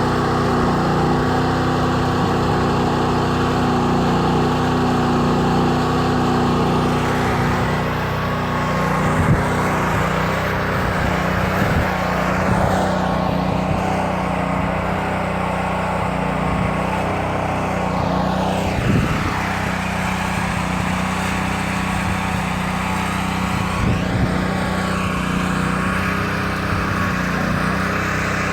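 Heavy machinery running loud and steady, a constant engine hum under a broad mechanical din, with a few short knocks and a couple of falling whines partway through.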